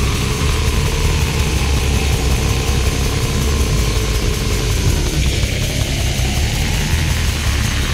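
Death metal song: heavily distorted guitars over fast, pounding drums, a dense and unbroken wall of sound.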